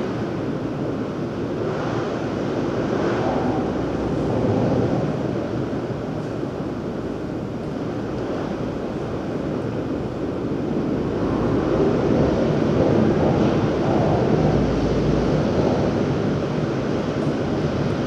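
Outdoor ambience of road traffic and wind on the microphone: a steady low noise that grows louder about twelve seconds in, as heavy vehicles pass.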